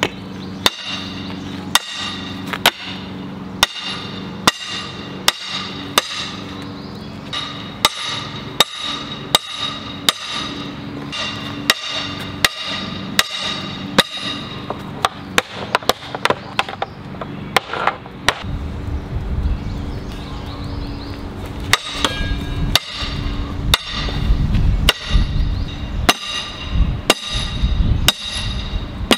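Steady hammer blows, about one a second, driving the iron hoops down onto the oak staves of a barrel being raised, each strike followed by a metallic ring.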